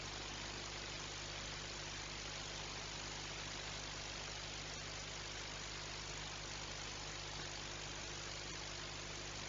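Steady low machinery drone with several fixed hum tones under an even hiss, unchanging throughout.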